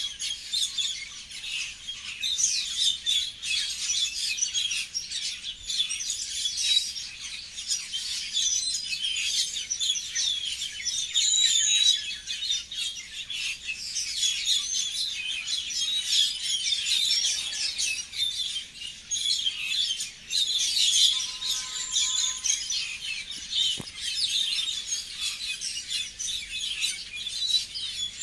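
Many small birds chirping and tweeting at once: a dense, continuous chorus of short, high calls.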